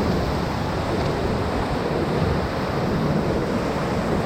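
Whitewater rapids rushing: a steady, loud wash of churning river water.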